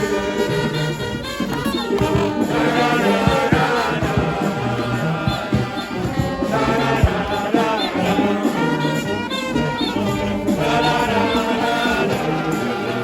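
Loud music with a group of voices singing together over a steady bass, with brass instruments in the mix.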